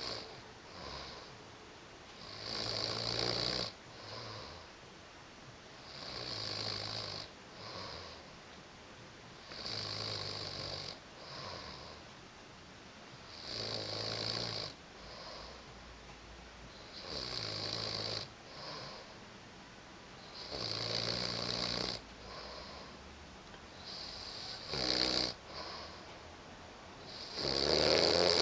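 A man snoring in deep sleep: a loud snore about every three and a half to four seconds, eight in all, each followed by a softer breath.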